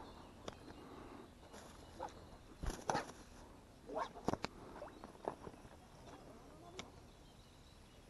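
Handling noises close to the microphone while a hook is baited: scattered small clicks and rustles, loudest in two short clusters about three and four seconds in, over a faint outdoor background.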